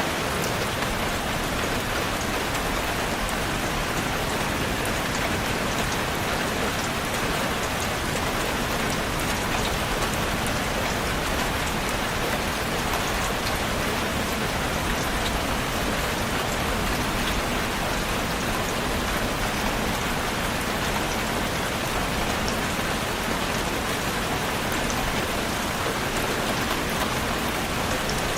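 Steady rain falling, an even hiss of rain with faint scattered drop ticks and no change in strength.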